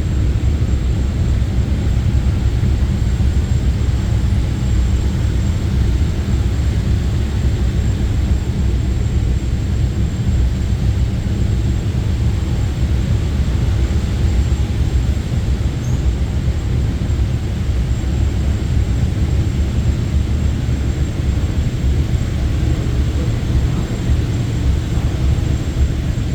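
Churros depositing machine running steadily: a continuous low rumble with a thin, high, steady tone over it.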